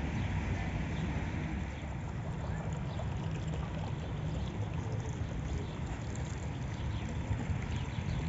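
A small fountain jet bubbling and splashing into an open pool, over a steady low rumble that is the loudest part.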